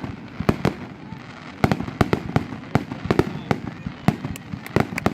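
Fireworks finale: a rapid, irregular string of sharp aerial shell bangs and reports, several a second, over a continuous rumble.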